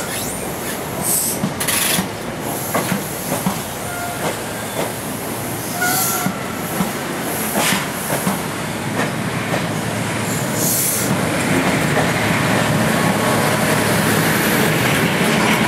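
Passenger coaches rolling past close by, the wheels clicking over rail joints with a few short squeals. In the last few seconds a diesel locomotive comes by and the rumble grows louder.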